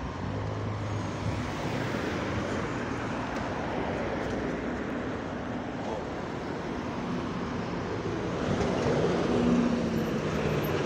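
Street traffic, then a Scania double-decker bus drawing close, its engine and cooling fan getting louder about seven seconds in with a steady low hum.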